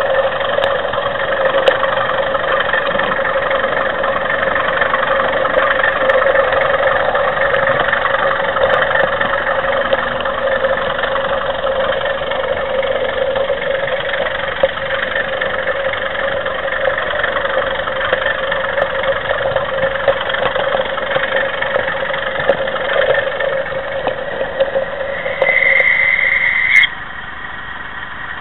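OO gauge model train running, picked up close by a camera riding on a wagon: a steady mechanical hum with small clicks from the wheels and track, mixed with a DCC sound decoder's diesel engine sound. Near the end a brief high squeal sounds, then the running noise cuts off suddenly as the train stops, leaving a quieter steady engine sound.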